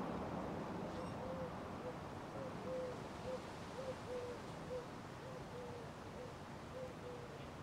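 Hunter Studio Series ceiling fan running, with a faint short pitched chirp repeating about twice a second over a steady low hum.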